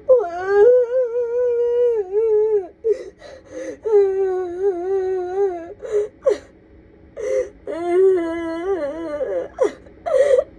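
An adult woman sobbing hard: three long, wavering wailing cries, each held for about two seconds, broken by sharp gasping in-breaths.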